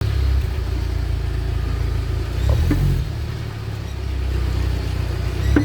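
UAZ Patriot running with a steady low rumble, with a couple of sharp clicks, one about halfway through and one near the end. The clicks are the knock in the vehicle's drive axle.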